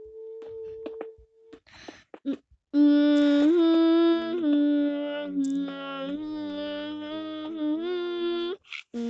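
A high voice hums a wordless tune: a soft held note first, then from about three seconds in a louder melody of sustained notes that slide from one to the next, stopping shortly before the end.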